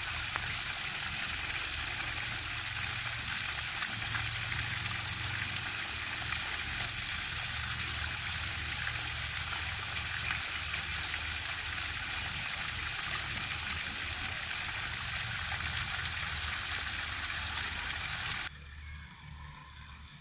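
Small floating pond fountain spraying a jet that falls back onto the water: a steady, splashing hiss with a low rumble underneath. It stops abruptly near the end.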